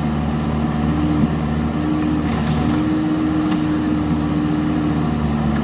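Heavy diesel earthmoving machinery running steadily, with a higher steady tone over the engine note that drops out and comes back a few times.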